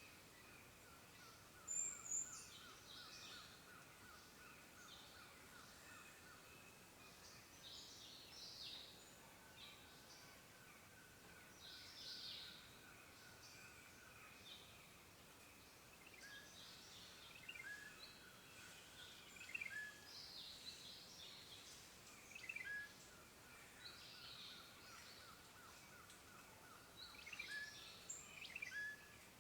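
Faint birdsong: several small birds chirping and calling at intervals over a soft, steady, fast-pulsing trill.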